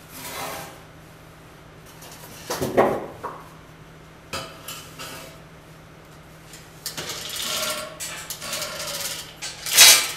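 Heavy steel locomotive truck parts being worked into place, heard as irregular clanks, knocks and scraping, with a longer stretch of scraping late on and a loud metallic knock near the end.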